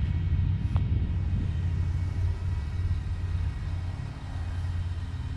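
Vehicle engine running steadily, a low rumble.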